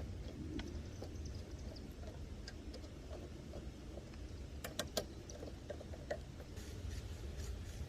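Scattered light metallic clicks of hand tools tightening the ignition coil bolts on a small mower engine, with a quick cluster of three clicks about five seconds in, over a steady low rumble.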